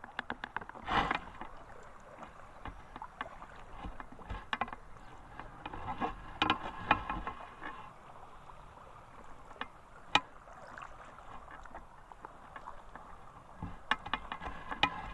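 Lake water sloshing and splashing around people wading chest-deep, with irregular small splashes and knocks: a louder burst about a second in, a cluster in the middle, a sharp knock later on and more splashes near the end.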